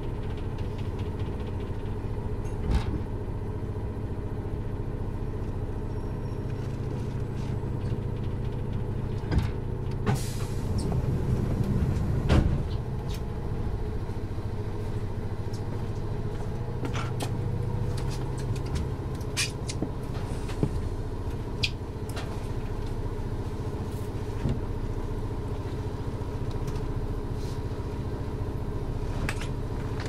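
Inside a Toyama Chihō Railway 10020 series electric train (ex-Eidan 3000 series running gear) as it comes to a stop at a station. A few loud clunks come about ten to twelve seconds in as it halts. It then stands with a steady low hum and occasional clicks.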